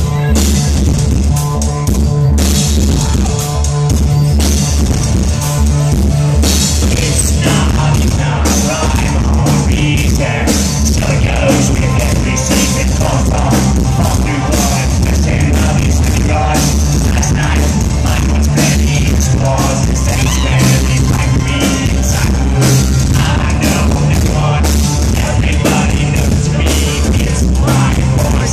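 Industrial band playing live at loud volume: a pounding drum and electronic beat with heavy bass, and a singer's vocals over it.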